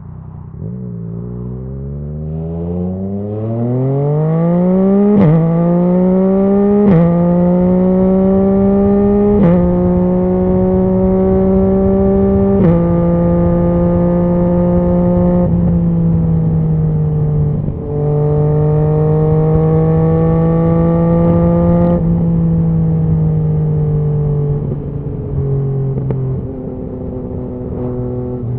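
A 2019 Yamaha MT-09's inline three-cylinder engine, through a Scorpion Serket full exhaust, accelerating hard up through the gears. There are four quickshifter upshifts a few seconds apart, each a sharp crack with a quick drop in revs. It then holds a steady speed, and near the end the revs ease off with a few sharp pops on the overrun.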